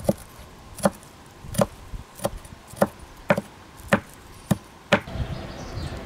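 A blade chopping down onto wood: nine sharp chops, about one every half second to second, gradually speeding up.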